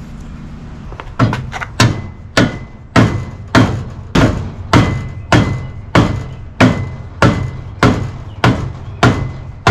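A steady run of sharp thumps, evenly spaced at about one every 0.6 seconds, starting about a second in.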